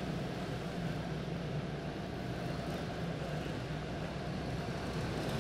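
Small Honda engines of quarter midget race cars running steadily at low speed under a caution.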